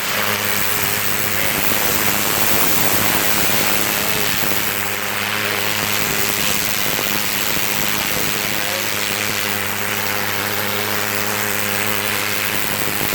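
Pressure washer spraying through a turbo (rotating) tip, its jet blasting moss off a roof: a loud, steady hiss of spray over the steady hum of the machine.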